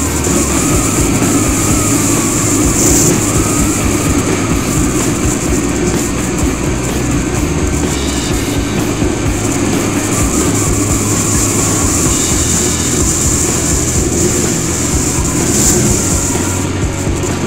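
Motorcycle engine running steadily at cruising speed, mixed with wind and road rumble on the microphone.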